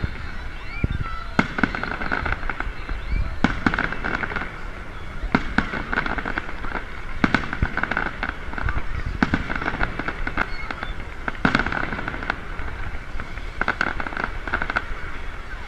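Aerial fireworks shells bursting in a display: sharp bangs every second or so, with patches of rapid crackling between them.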